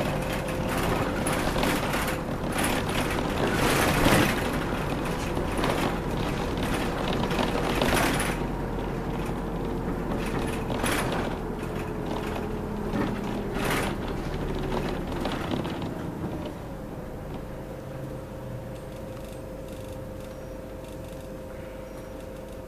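Inside a moving city route bus: steady engine and road noise with a faint steady whine, and frequent short knocks and rattles from the cabin, which thin out after about eight seconds. The noise grows quieter over the last few seconds.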